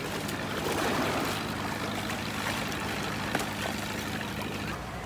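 A small boat engine running steadily, its low tone shifting just before the end, under water trickling and splashing as wet jellyfish are handled.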